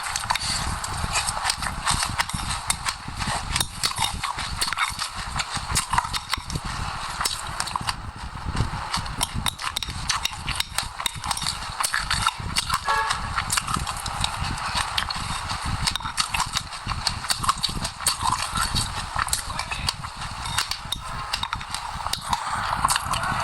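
Close-miked chewing of sesame seeds and passion fruit: dense, rapid crunching and crackling of seeds between the teeth, with no pause.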